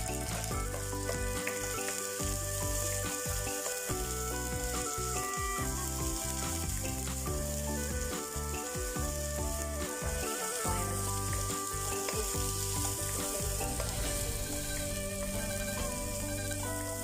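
Food sautéing in hot oil in a pan, a steady sizzle.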